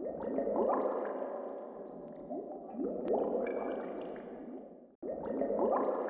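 Sound effect for an animated channel logo: a dense string of short rising swoops over a noisy bed, starting abruptly. It cuts off about five seconds in and then starts over.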